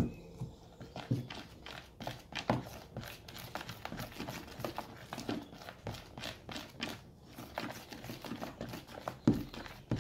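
A wooden stick stirring freshly activated slime in a plastic bowl, knocking and scraping against the bowl in quick, irregular clicks. A sharp thump right at the start as a bottle is set down on the table.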